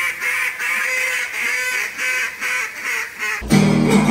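A quick run of duck quacks, some short and some drawn out. About three and a half seconds in, a loud chord is strummed on an acoustic guitar.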